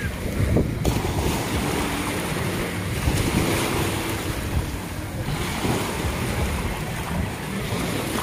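Small waves breaking along the shore with wind buffeting the microphone, and the faint hum of a jet ski running out on the water.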